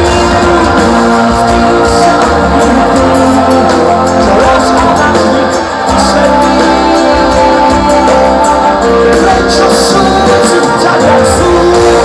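Live pop-rock band playing loudly, with electric guitars, keyboards and drums under a lead singer's vocal, heard from among the concert crowd.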